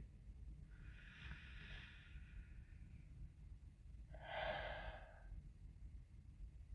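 A person with a cold breathing audibly twice: a long, faint breath about a second in, then a shorter, louder breath about four seconds in.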